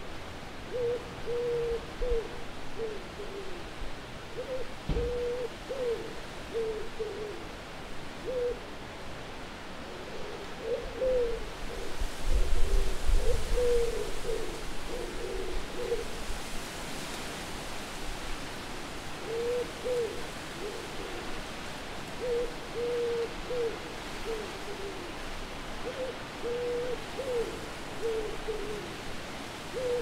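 Owls hooting, many short hoots in series with a few pauses, over a steady wind hiss. A louder low rumble of wind comes in about twelve seconds in.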